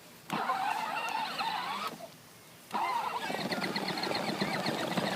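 Electronic engine-start and revving sound effects from a child's ride-on toy motorcycle, playing in two stretches that stop and start abruptly with a short break about two seconds in.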